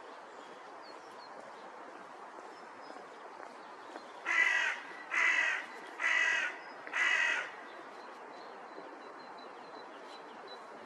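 Hooded crow cawing four times, evenly about a second apart, starting about four seconds in.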